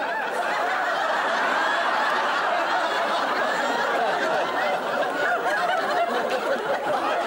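Studio audience laughing, one long, even wave of laughter.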